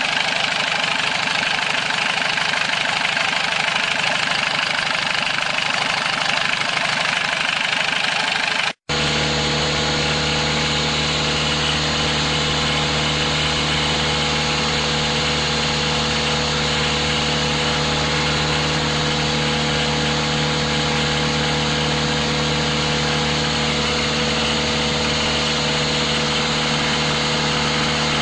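A vehicle engine running steadily. About nine seconds in, the sound cuts out for an instant and picks up again as a steady, even idle with a low hum.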